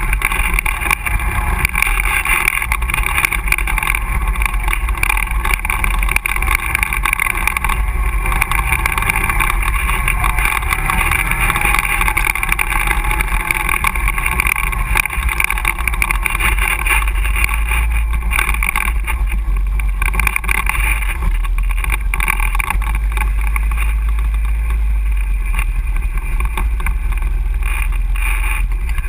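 ATV engine running steadily while the quad rides along a dirt trail, a continuous drone with a strong low rumble.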